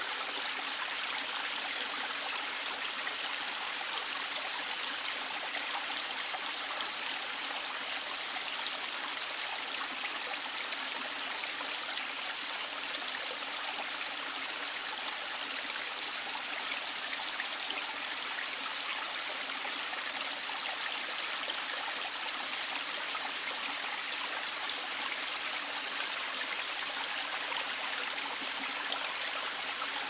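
Mountain stream flowing: a steady, even rush of running water with no breaks or changes.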